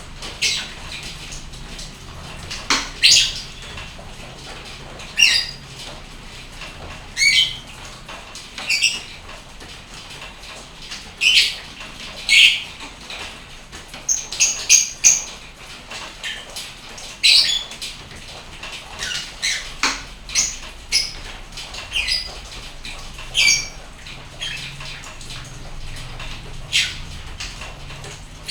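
Lovebird giving short, sharp chirps and squawks over and over, one every second or two, over a steady faint hiss of rain.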